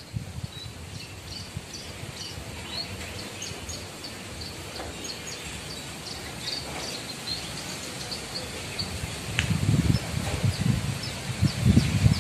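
Javan bush lark (branjangan) singing in its cage: a scattered run of short, high chirps and twitters. About three-quarters of the way in, a low buffeting rumble on the microphone joins in and is louder than the song.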